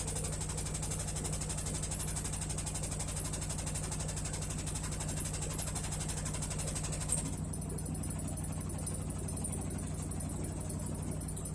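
Hisense HW-DG80C washing machine running in its spin cycle: a steady low hum with a fast, even rattle. This is the abnormal spin noise of a faulty unit, whose drum the owner says rattles against the outer tub.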